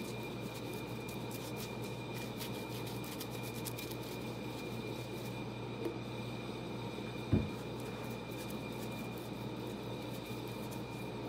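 Faint scratchy strokes of a glue brush spreading contact cement over a leather saddle ground-seat piece, heard over a steady hum with a faint high whine. A single low thump about seven seconds in.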